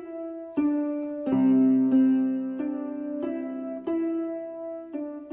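Background music: a piano playing a slow melody of held notes, a new note about every half second to a second, with lower notes joining about a second in.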